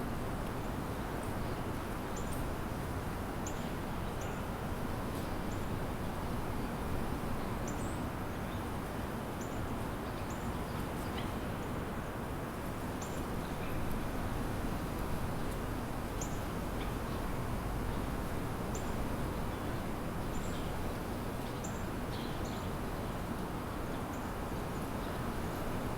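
Small birds giving short, high chirps every second or two over a steady, low background rumble of distant city noise.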